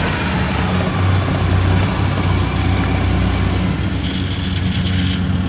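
Engine of a tracked rice carrier loaded with sacks, running steadily as it drives away.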